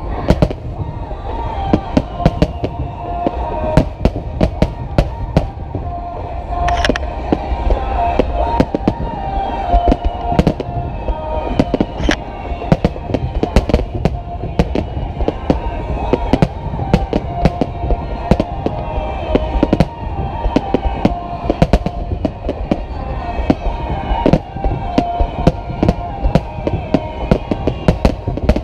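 Fireworks display: aerial shells bursting in rapid, irregular succession, many bangs a second, with music playing underneath.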